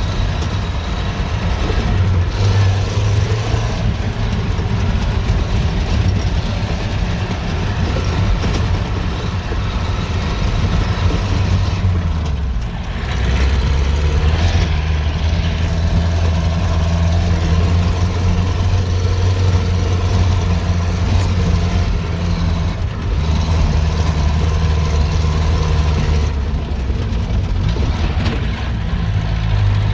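An engine running steadily at low speed with a deep hum, changing abruptly about 12, 23 and 26 seconds in as between separate clips.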